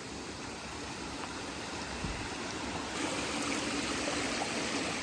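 Stream water running steadily, growing louder about three seconds in.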